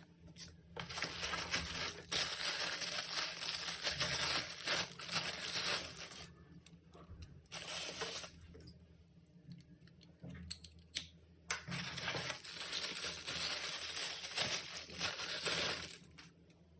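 Packaging being handled and unwrapped: two long stretches of crinkling, rustling noise, a shorter burst between them, and a few sharp clicks near the middle.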